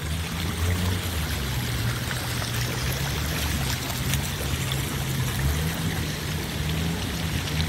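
Muddy floodwater running across a field after heavy rain, a steady rushing wash with a low rumble underneath.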